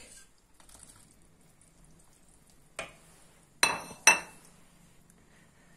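A wire whisk clinking against a stainless steel soup pot: three sharp metallic clinks with a short ring, one about three seconds in and two louder ones close together just after.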